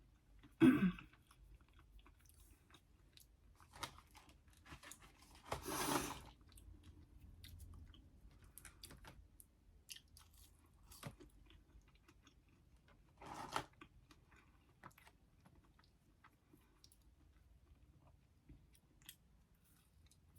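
Close-miked chewing and biting of fried food, wet chewing with occasional crunches; the loudest bites come about a second in, around six seconds in and again past the middle.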